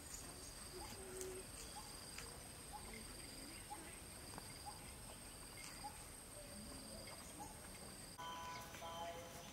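Rural ambience: insects trilling steadily at a high pitch, and a bird giving short chirps about once a second. Near the end the sound changes and a longer animal call with several pitches comes in.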